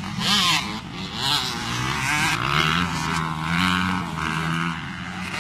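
Motocross dirt bikes racing, several engines revving up and down in pitch as the riders work through the track.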